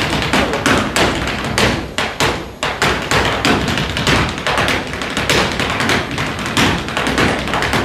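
A dancer's shoes striking a wooden stage floor in rapid footwork, unaccompanied: quick, uneven runs of sharp taps and heavier stamps.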